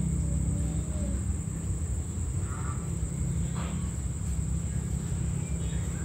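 Night insects trilling in a steady high-pitched drone over a steady low rumble, with faint voices in the background.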